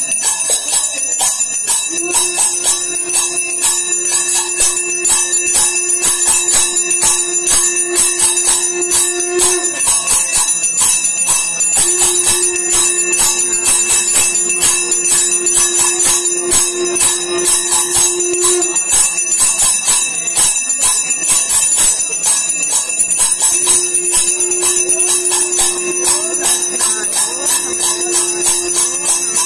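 Temple bells ringing rapidly and without a break during the puja, with a steady held low tone that stops twice for a few seconds and comes back.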